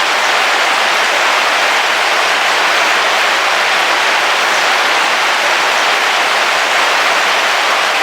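Heavy rain drumming on a car roof, heard from inside as a steady, even hiss.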